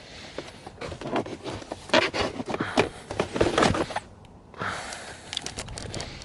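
Stiff rubbery-plastic floor liner being handled and pushed into a car's footwell: irregular scraping, rubbing and knocks, loudest about two to four seconds in, then after a short pause more clicks and rustling.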